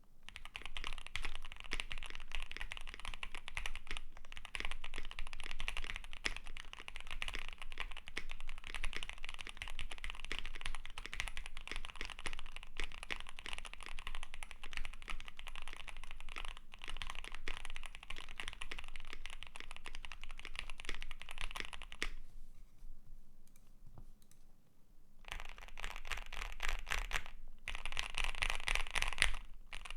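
Fast typing on a custom QK65 mechanical keyboard with lubed Gateron Box Ink Pink linear switches, an FR4 plate and GMK keycaps: a dense, even stream of keystrokes. The typing pauses for about three seconds roughly three-quarters of the way through, then resumes.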